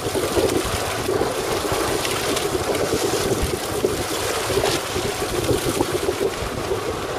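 Wind buffeting the microphone, with sea water washing against a boat's side; an uneven, gusty rush that never stops.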